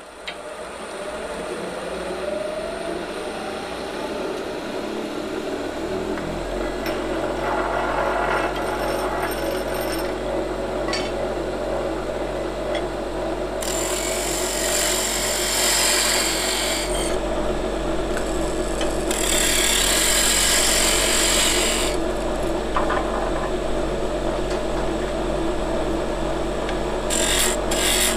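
Wood lathe motor coming up to speed with a rising whine, then running steadily while a turning tool cuts the spinning ash blank. Two longer, louder cuts come about halfway through and again a few seconds later.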